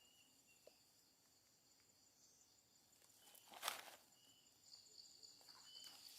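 Faint night-time insect chorus: steady high-pitched trilling with short chirps now and then, and a brief rustle about three and a half seconds in.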